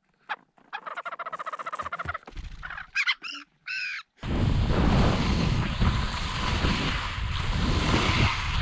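White-tailed ptarmigan calling: a rapid run of clucks, then a few short calls that rise and fall. About four seconds in this gives way suddenly to a loud, steady rush of wind on the microphone as skis slide downhill on snow.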